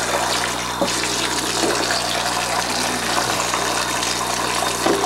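Water running steadily from a sink tap into a small plastic baby bath.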